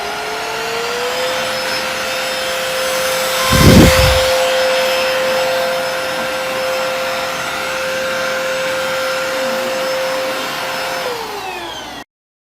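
JASHEN V12 cordless stick vacuum running: its motor whine finishes rising to full speed about a second in, then holds a steady pitch. There is a short louder rush about four seconds in. Near the end the whine drops in pitch as the motor winds down, and the sound then cuts off abruptly.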